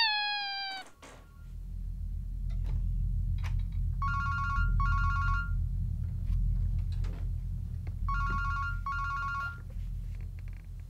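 A telephone ringing in a double-ring pattern: two rings back to back, then a pause of about two and a half seconds, then two more. Under it runs a low steady drone, and a short falling squeal sounds at the very start.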